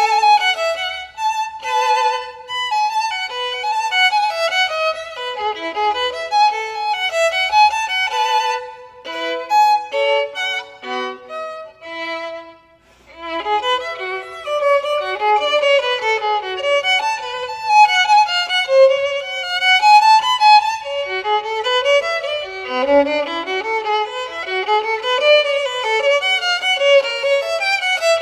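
Solo violin playing a quick unaccompanied passage of running notes, with a short break near the middle before it resumes with rising runs.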